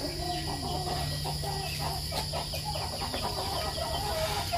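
Chickens clucking in the background, a string of short, faint calls, over a steady low hum.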